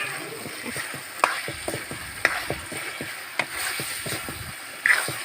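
Chicken masala frying in a pan with a steady sizzle, stirred with a spatula that scrapes and knocks against the pan every second or so.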